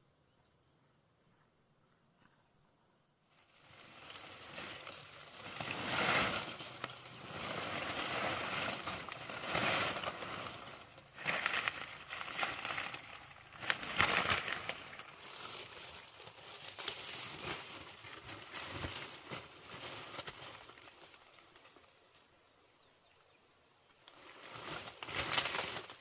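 Rustling, crunching noise with irregular sharp cracks. It starts a few seconds in, eases off near the end and returns briefly, over faint steady high-pitched tones.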